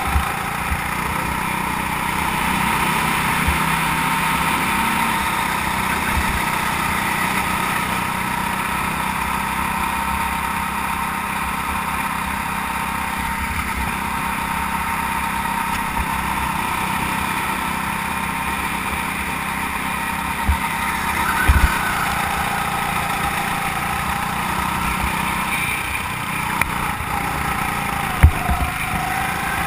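Rental go-kart engine running steadily under throttle, heard from on board the kart, its pitch shifting a little a couple of times. A few sharp knocks, the loudest near the end.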